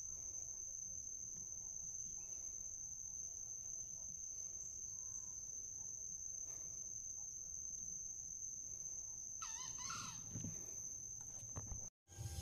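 Steady high-pitched drone of insects, with a cock crowing once about ten seconds in.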